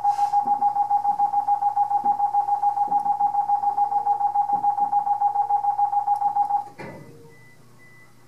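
Train protection radio alarm sounding in the driver's cab: a loud, steady mid-pitched tone beeping rapidly, the signal that orders all trains to make an emergency stop. It cuts off suddenly about two-thirds of the way through, leaving a low hum.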